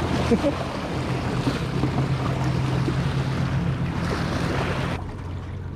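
Waves washing and breaking against jetty rocks, a steady rush of surf with wind rumbling on the microphone. The wash stops abruptly near the end.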